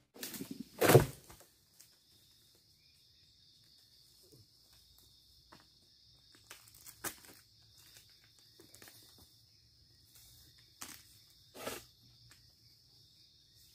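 Insects buzzing steadily in a high band, joined by scattered knocks and rustles. A single loud thump comes about a second in.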